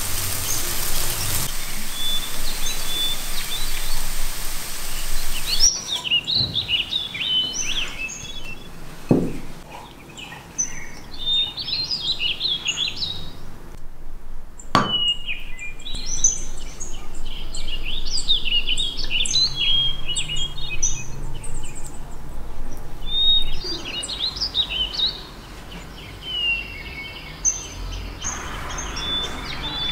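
Songbirds chirping and singing in short, repeated phrases, over a steady hiss that stops about six seconds in. Two single knocks come in the middle.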